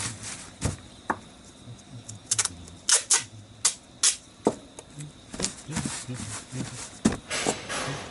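A series of irregular sharp clicks and knocks, with a short hissy rustle near the end.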